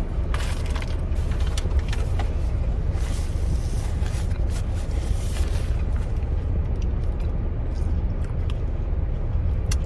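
Steady low rumble of a car running, heard inside the cabin, with scattered small clicks and rustles of someone biting into a sandwich and chewing.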